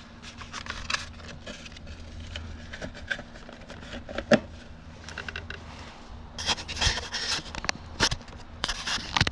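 Scraping, rubbing and small clicks of hand work fitting a screw-on part to a lathe's electronics panel, busiest in the last few seconds, over a faint steady hum.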